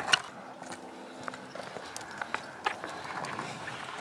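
Two skateboards ridden with one foot on each, wheels rolling and boards knocking on the ramp floor: a sharp clack just after the start, then a few lighter knocks.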